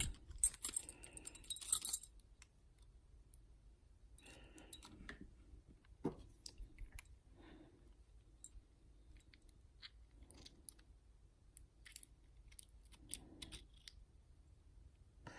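Keys jangling and a key being pushed into the lock cylinder of a Yale Superior lock, a quick run of sharp metallic clicks for about two seconds. After that only faint, scattered small clicks of the lock being handled.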